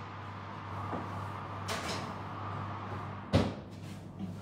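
A single sharp knock near the end, like a cupboard door or a hard object set down on a counter, over a steady low hum and a faint scraping rustle.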